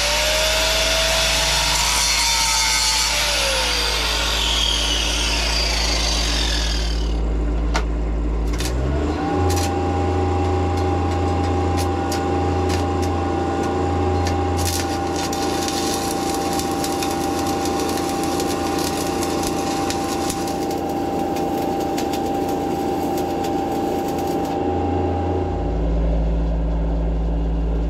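Angle grinder grinding a steel plate joint, its whine sliding down in pitch as it spins down after about four seconds. About nine seconds in, the engine-driven DC welding machine's engine speeds up to a steady higher pitch with a few sharp clicks while stick welding with 7018 rod, then drops back to idle near the end.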